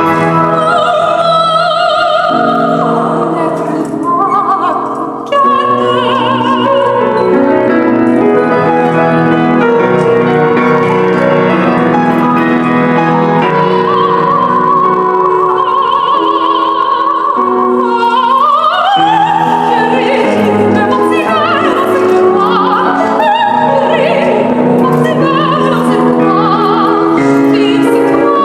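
Soprano singing an operatic aria with vibrato, accompanied by piano.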